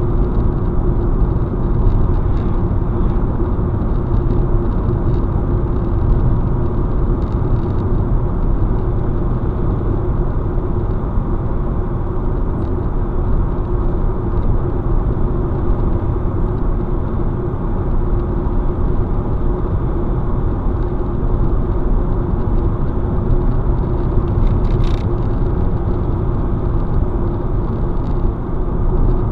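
Steady road and engine noise inside a car cruising on a main road: a low rumble of tyres on asphalt with a constant hum.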